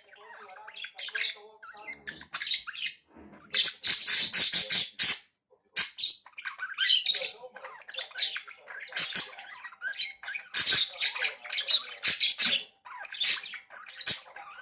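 Pet budgerigars chirping and squawking in quick bursts of high-pitched chatter, with two louder spells about four and eleven seconds in.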